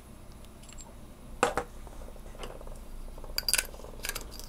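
Light metal clinks and taps from small spinning-reel parts and a machined-aluminum bearing checker being handled: a couple of knocks about a second and a half in, then a quick run of clicks near the end.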